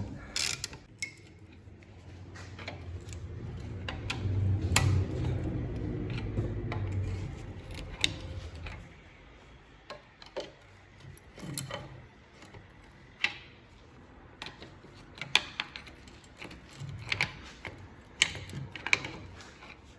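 Hand tools working on the rear brake caliper bolts: ratchet-wrench clicking and scattered metallic clicks and clinks. A low rumble swells and fades during the first half.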